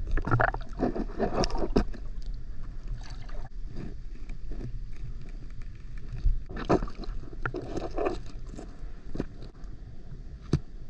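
Water splashing and sloshing close by, with irregular knocks and splashes.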